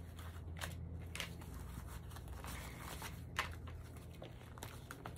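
Paper banknotes rustling and crinkling as hands sort and fold them: a few soft, crisp rustles and light clicks, scattered unevenly.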